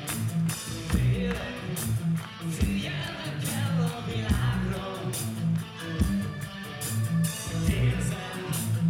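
Live rock band playing: drum kit keeping an even beat under electric guitars, bass and keyboards, with a male lead singer singing into a microphone from about two and a half seconds in.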